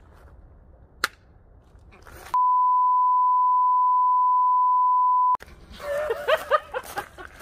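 A single sharp click about a second in, from the cheap spring-cocked toy pistol firing. Then a steady, high, pure test-tone beep, the colour-bar tone, held for about three seconds and cut off suddenly, followed by laughter.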